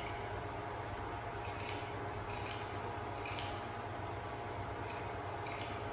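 Scissors snipping through paper, five short crisp cuts spread over a few seconds, above a steady low hum.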